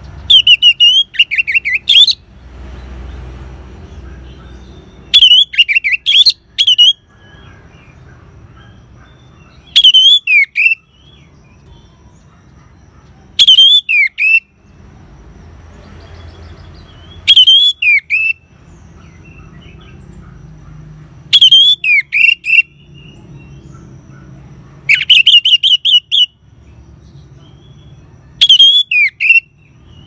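Orange-headed thrush singing in short, loud phrases, about one every four seconds, each a quick run of whistled and twittering notes lasting about a second. This is the song style bird keepers call ngeban.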